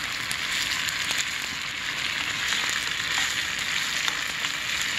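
Marinade sauce with fried garlic and scallions sizzling steadily in a frying pan as a spoon stirs it.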